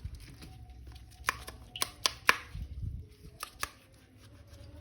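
A handful of sharp clicks and light knocks, spaced irregularly, from hands handling a toy action figure.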